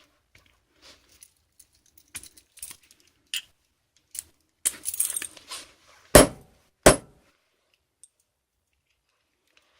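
Small hard parts clicking and clinking as they are handled, followed by two loud sharp knocks about six and seven seconds in.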